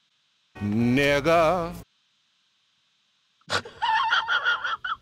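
A single drawn-out vocal sound with a wavering pitch, about a second long. It is followed by nearly two seconds of silence, then a run of quick, choppy, higher-pitched vocal sounds starting about three and a half seconds in.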